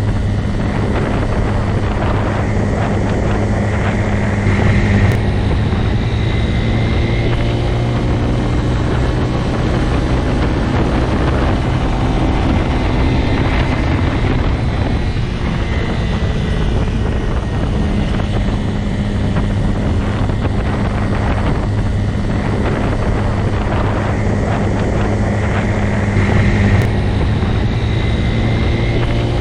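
Motorcycle engine running steadily at a constant low pitch, swelling slightly a few seconds in and again near the end.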